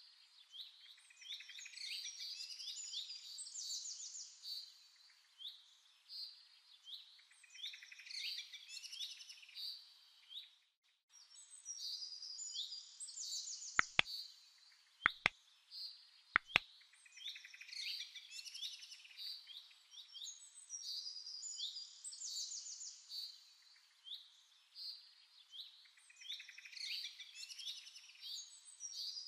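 Birds chirping and trilling in dense, repeating phrases, with a brief break just before the middle. Three sharp double clicks come a little after halfway and are the loudest sounds.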